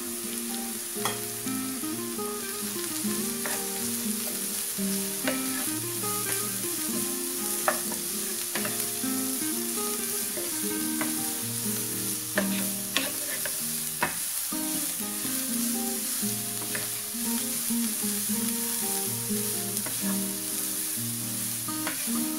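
Sliced vegetables sizzling as they are stir-fried in a pan, with a wooden spatula scraping through them and knocking sharply against the pan every few seconds.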